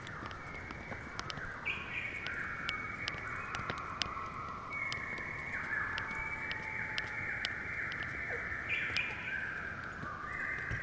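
Forest wildlife chorus: many overlapping drawn-out calls, each held at a steady pitch for one to three seconds, with frequent sharp ticks.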